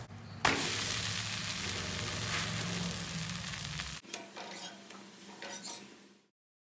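Hot cast-iron dosa tawa sizzling loudly, starting suddenly about half a second in. It cuts off abruptly about four seconds in, and a fainter sizzle fades away.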